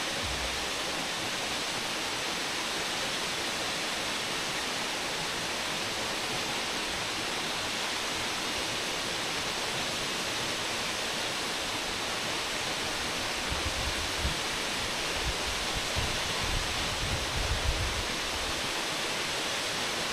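Waterfall running: a steady rush of falling water. Low bumps on the microphone come and go over a few seconds near the end.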